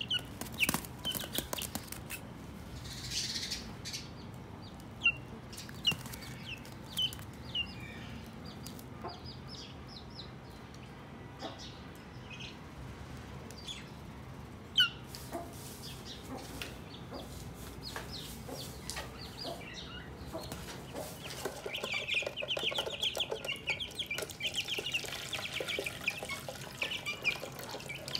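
A young broiler chick peeping in short, falling chirps, one every second or so. About two-thirds of the way through, a whole group of chicks starts chirping together, thick and continuous.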